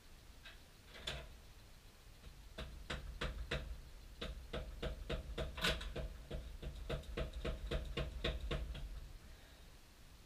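Hand-tool work in a car's engine bay: a steady run of sharp clicks, about three a second, after a couple of single clicks near the start, stopping about a second before the end.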